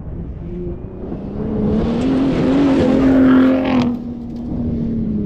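Ford Raptor pickup's engine accelerating, its pitch climbing and a rush of noise building to a peak about three seconds in, then easing off about four seconds in and running on steadily.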